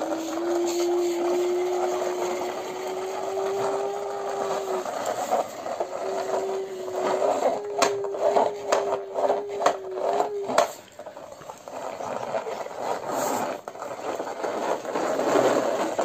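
A plastic toy police jeep's drive mechanism whirring with a steady whine that slowly rises in pitch and breaks off about five seconds in. It whirs again and is joined by a quick run of sharp clicks, then stops near eleven seconds, leaving quieter rubbing and scraping of the toy on the floor.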